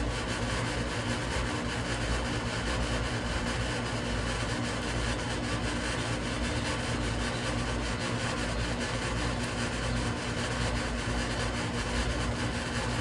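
Steady low mechanical hum, like a motor running, with several constant low tones and no change in level.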